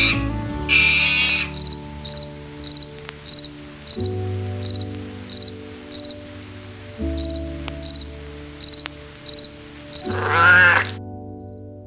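Cricket chirping: short, high, pulsed chirps repeating about twice a second over soft sustained background music. About ten seconds in, a louder animal call that rises and falls in pitch takes over.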